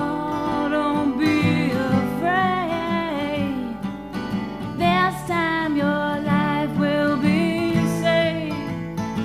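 A song: a voice singing long notes that slide between pitches over a guitar accompaniment.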